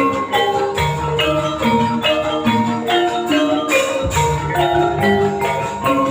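Javanese gamelan accompaniment for kuda lumping: struck metal-keyed instruments play a fast repeating melody over drum strokes, about three strokes a second.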